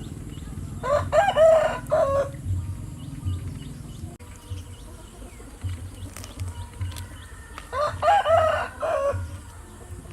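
Rooster crowing twice, two long cock-a-doodle-doo calls about six seconds apart.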